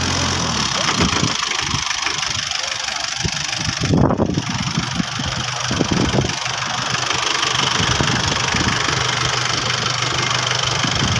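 Engine of a homemade farm truck running: its steady idle gives way about a second in to a rougher, noisier sound with a few surges, then settles back toward a steady hum near the end.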